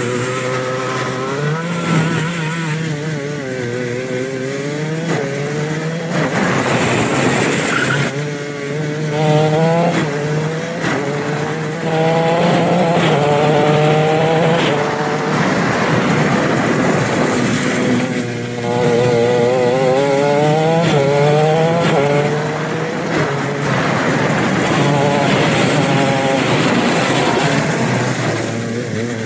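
A 125cc two-stroke shifter kart engine running hard, heard from on board the kart. It climbs in pitch and drops back again and again as the kart accelerates, shifts and slows through the course.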